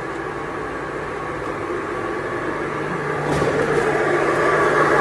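Steady mechanical hum of an industrial paste mixer installation running, with its exhaust fan switched on; the hum grows louder about three seconds in.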